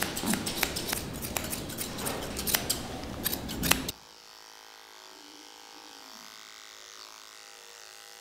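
Grooming scissors snipping through a cat's long fur, many quick sharp snips. About four seconds in this gives way to the faint, steady hum of an electric pet clipper shaving the coat.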